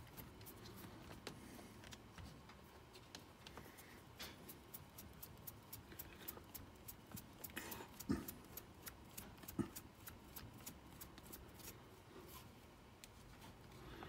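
Faint small clicks and light taps of a brass C-hub and its screw being worked by hand on an RC crawler's front axle. The clicking grows busier in the second half, with a couple of slightly louder knocks about halfway through.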